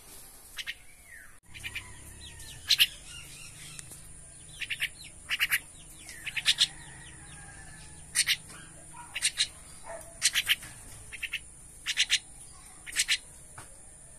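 Caged mynas calling in short, harsh bursts of three or four rapid notes, a burst every second or so, over a faint steady high hiss.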